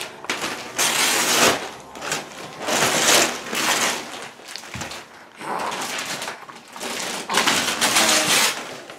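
Christmas wrapping paper being ripped and crumpled as it is pulled off a wrapped sofa, in about four rustling bursts of a second or so each.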